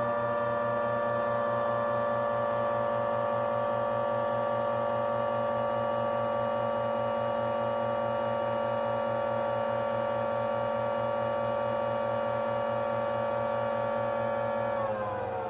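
Several small battery-powered model sirens sounding together, a chord of steady siren tones over a pulsing low hum. Near the end their motors are cut and the tones slide downward as the rotors wind down.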